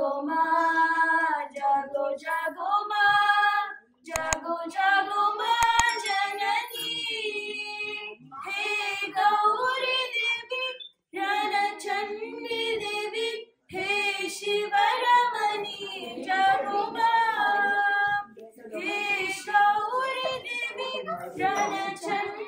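Women singing unaccompanied, with held notes in phrases of a few seconds and short breaks between them.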